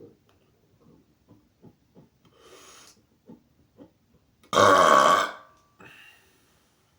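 A man gives one loud burp lasting nearly a second, about four and a half seconds in, brought up by a carbonated soda he has just drunk. Before it there are faint soft clicks, and after it a short, much quieter sound.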